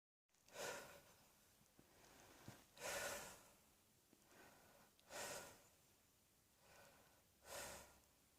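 A person's heavy breaths, quiet overall: four strong noisy breaths or gasps about every two and a half seconds, with fainter breaths between.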